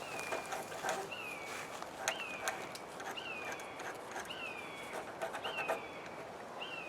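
An animal's short, high call, repeated about once a second, each call starting sharply and sliding down in pitch, with faint scattered taps and knocks in between.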